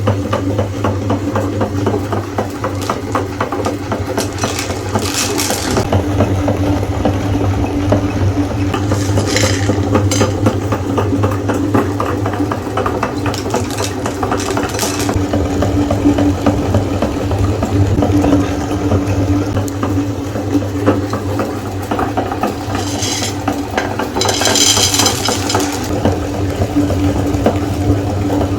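Electric meat grinder running steadily with a constant motor hum while M&M candies crackle and rattle through it as they are ground. A few brief, higher-pitched rasps come and go.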